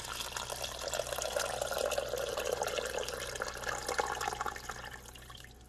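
Water being poured into a pot of cooked lentils, a steady pouring that dies away near the end.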